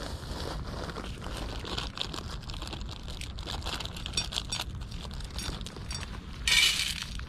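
Cats chewing dry kibble from steel bowls: a run of small crunches and clicks. About six and a half seconds in comes a short, loud crinkling rattle as dry cat food is poured from a foil bag into an empty steel bowl.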